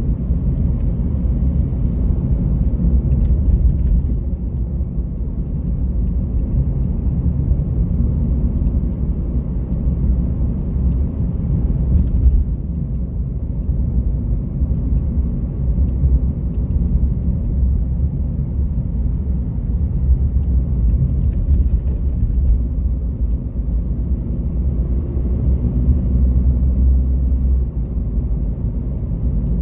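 Steady low rumble of a car being driven along a street: engine and tyre noise of the moving car.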